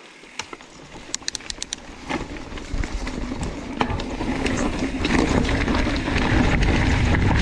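Mountain bike rolling down a rough dirt trail. Scattered clicks and rattles come from the bike over a rising rumble of tyre and ride noise, which grows steadily louder as the bike picks up speed.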